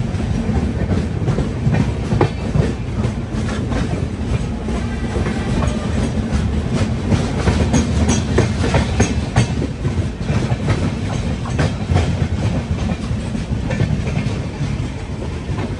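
Passenger express coach rolling along the track: a steady low rumble of the wheels with frequent sharp clicks as they run over rail joints.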